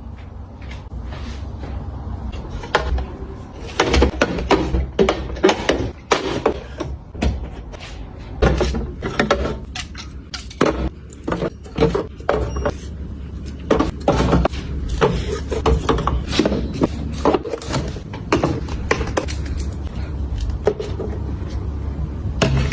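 Small objects and containers being handled and set down: a quick, irregular run of clicks, taps and knocks, over a steady low hum.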